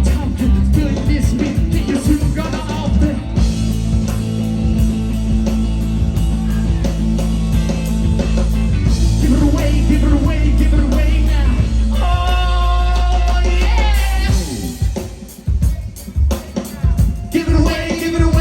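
Live rock band playing a song: drum kit, bass and guitar under a lead singer. About two-thirds of the way through the full band thins out into a quieter, sparser passage, with the singer holding wavering notes over it near the end.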